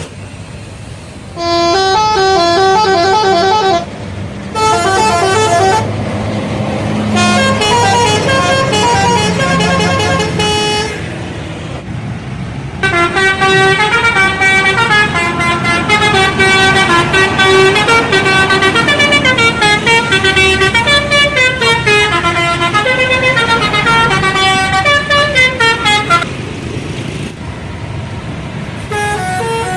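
Indonesian bus telolet horn playing fast, stepping multi-note melodies in several bursts, the longest running about thirteen seconds from near the middle. Under it is the low rumble of a running engine.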